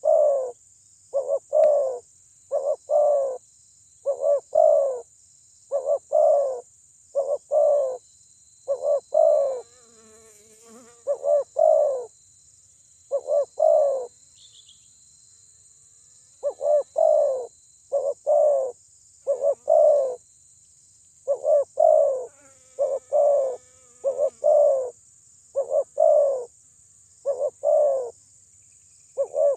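Spotted dove (terkukur) cooing over and over in short paired notes, about one pair a second, with a break of a couple of seconds past the middle. This is a decoy dove's call used to lure and provoke rival doves. A faint steady high hiss lies underneath.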